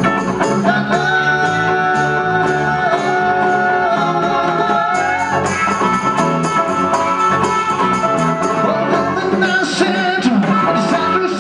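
Live band playing: a harmonica holds long notes over strummed acoustic and electric guitars and hand drums keeping a steady beat.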